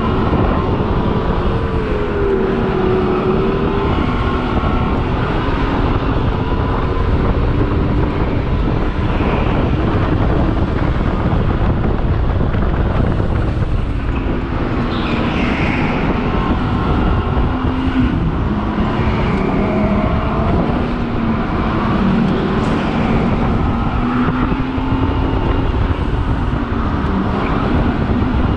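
Synthetic engine sound from speakers in the headrest of an electric go-kart, its pitch rising and falling repeatedly as the kart is driven, over a steady low rush of noise.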